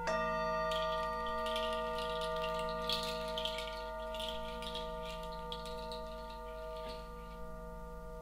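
A metal sound-bath instrument is struck right at the start. Several clear, steady bell-like tones ring on over earlier ones still sounding, with a shimmering high wash that slowly fades away.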